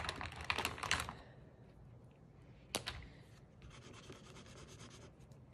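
Water-soluble crayon stick scratching across heavy paper: a cluster of quick strokes in the first second, a single tick near the middle, then steady scribbling for about a second and a half near the end.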